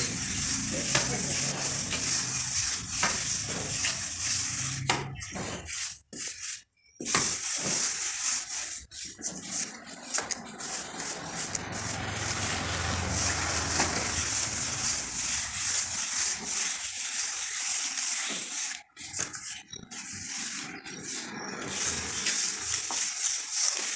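A hand float rubbing and scraping over fresh cement plaster on a brick column, a steady gritty hiss. It breaks off briefly about six seconds in and again near the end of the second third.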